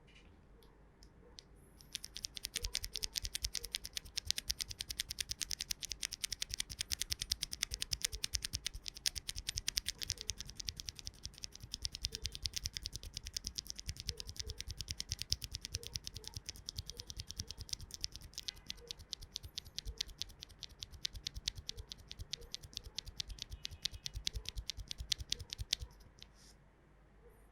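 Fast typing on a mechanical keyboard with broken-in, lubed and filmed Cherry MX Hyperglide Black linear switches under MT3 keycaps: a dense, even stream of keystroke clacks that starts about two seconds in and stops shortly before the end.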